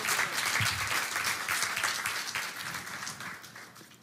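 Congregation applauding, the clapping dying away toward the end.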